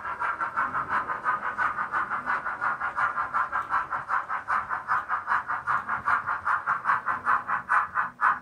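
OO gauge GNR Stirling Single model locomotive's DCC sound decoder playing steam exhaust chuffs through its small speaker, about six beats a second, as it hauls Pullman coaches. The beats grow louder and more distinct toward the end.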